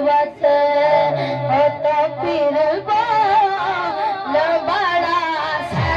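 A boy singing a naat (Urdu devotional poem) into a microphone, amplified through a sound system, in a held, wavering melody.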